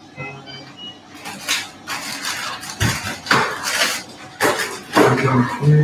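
Metallic clattering and clanking: a string of sharp rattling knocks, several in a row over about four and a half seconds, loud against the surroundings.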